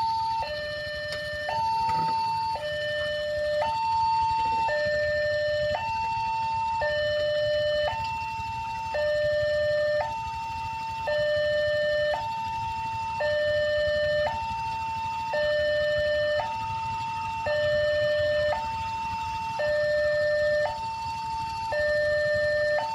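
Railroad level-crossing warning alarm sounding with the barriers down: an electronic two-tone signal alternating a higher and a lower tone, each held about a second, repeating steadily. A low rumble lies beneath it.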